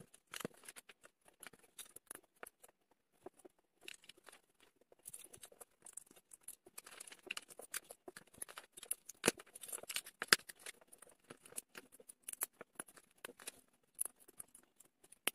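Plastic LEGO bricks being handled and snapped together by hand: faint, irregular light clicks and rattles, with two sharper clicks about nine and ten seconds in.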